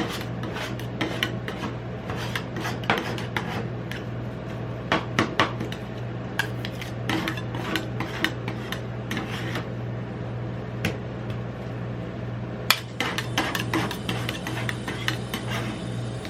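Metal spatulas tapping and scraping on the frozen steel plate of a rolled ice cream pan, many quick irregular strikes with rasping scrapes between them, over a steady low hum.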